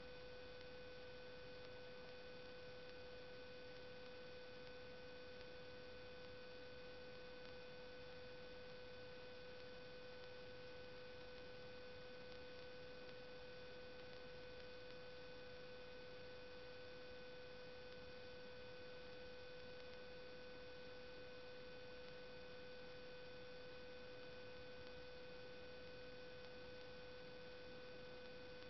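Near silence: a faint steady hiss with a thin, unchanging hum of a few fixed tones, the recording device's own electrical noise.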